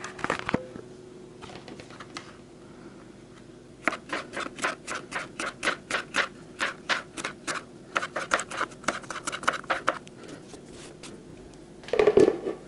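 Kitchen knife slicing sweet bell pepper into strips on a plastic cutting board: a quick run of sharp knocks, about three to four cuts a second, starting about four seconds in. Near the end there is a louder brush as the cut pepper strips are pushed into a plastic bowl.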